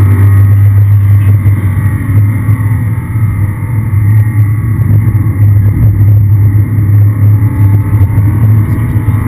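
Aston Martin V8 Vantage's V8 engine driven hard on a race track, heard from inside the cabin as a loud, steady low drone.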